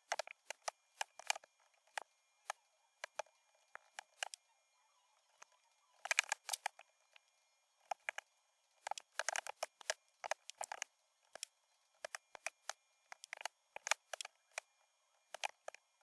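Typing on a computer keyboard: quick runs of key clicks broken by short pauses, with the densest runs about six seconds and nine to ten seconds in.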